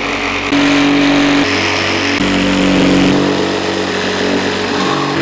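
Corded jigsaw cutting through thick pippy oak, its motor running loud and steady under load. Its pitch drops about two seconds in and picks up again near the end as the blade labours through the wood, where it hit something really hard that took a while to get through and burned the cut.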